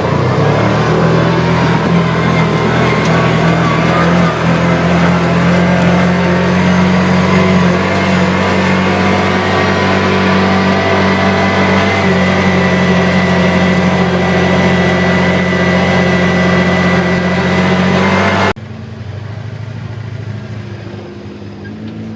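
ATV engine running steadily under way, loud and even. About three-quarters of the way through it drops suddenly to a quieter engine sound.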